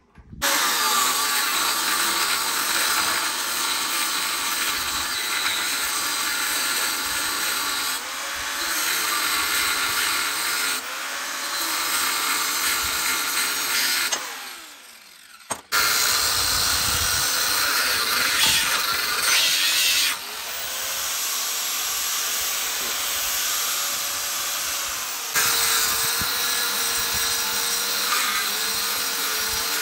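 Angle grinder with a thin 1 mm cut-off disc cutting into a rusty steel block: a loud, steady grinding whine whose pitch sags and recovers as the disc is pressed into the cut. About halfway through it stops and winds down, then starts cutting again.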